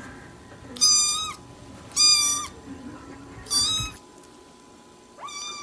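Cat meowing: four short, high, steady-pitched cries about a second and a half apart, the last one starting near the end.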